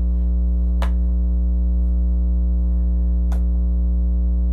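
Steady electrical mains hum with a stack of overtones, with two brief clicks, one about a second in and one near the end.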